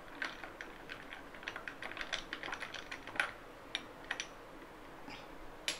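Metal spoon stirring a drink in a glass tumbler, clinking lightly and irregularly against the glass for about four seconds, then only a stray clink.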